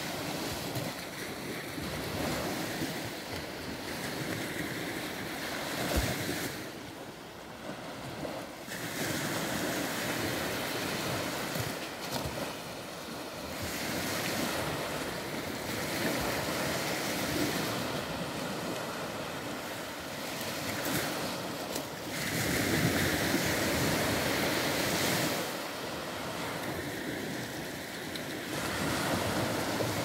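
Small Baltic Sea waves breaking and washing up the sand, the surf swelling and easing every few seconds, with wind on the microphone.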